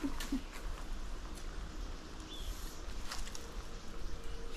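Honeybees buzzing faintly around their hive, a thin steady hum, with a few light clicks and rustles.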